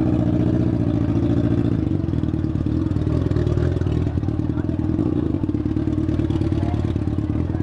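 Yamaha FZ6 inline-four motorcycle engine idling steadily with an even low pulse, the tone shifting slightly about two seconds in.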